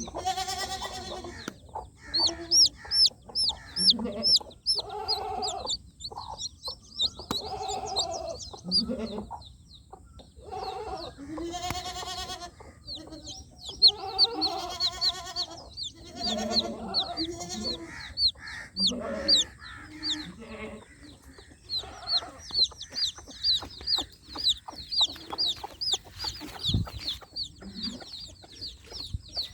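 Baby chicks peeping in quick runs of short, high, falling peeps, with a hen clucking lower down in between.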